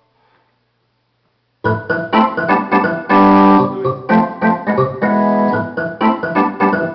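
Electronic keyboard playing rhythmic chords, starting abruptly about a second and a half in after near silence; some chords are short and clipped, others held for about half a second.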